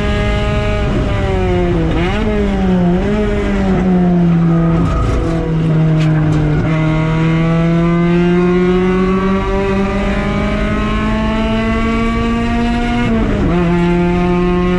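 Mazda Miata race car's four-cylinder engine at racing speed. Its pitch dips and recovers several times in the first few seconds, then climbs steadily under acceleration and falls sharply near the end.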